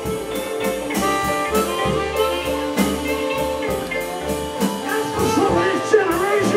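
Chicago-style blues band playing: amplified blues harmonica cupped against a vocal microphone, over electric guitar, piano, upright bass and a steady drum beat. The harmonica's notes bend and waver in the last second or so.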